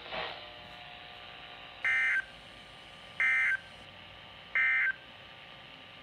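Three short, identical buzzing bursts of EAS (SAME) digital data tones over a weather radio's speaker, about 1.3 seconds apart: the end-of-message code that closes a severe thunderstorm warning.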